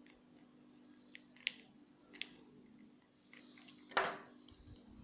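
Small metallic clicks and rattles from a jammed ignition lock and its key being handled and tried, with a louder sharp clack about four seconds in. The key is stuck in the lock and will neither turn nor come out.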